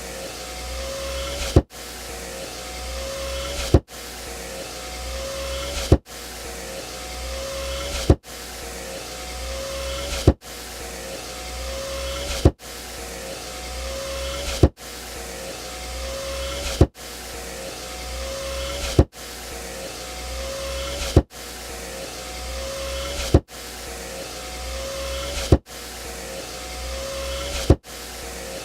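Car power window motor running the glass, growing louder over about two seconds, then ending in a sharp clunk as the glass hits its stop, repeated evenly about every two seconds.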